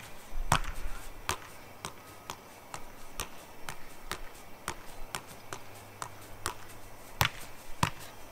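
A soccer ball being juggled, about fourteen taps in a steady rhythm of roughly two a second.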